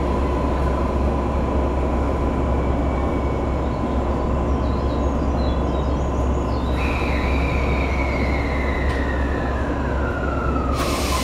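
Coupled 223-5000 and 5000 series electric trains standing at the platform, their on-board equipment giving a steady low hum with a thin high tone. About two-thirds of the way in a whine slides steadily down in pitch, and near the end a sudden loud hiss breaks in as the two sets are being uncoupled.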